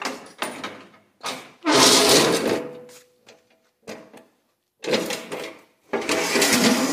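Steel snow plow frame being lifted off and dragged over a concrete floor: several bursts of metallic scraping and clanking, the longest about two seconds in and again near the end, with a brief ringing of the steel.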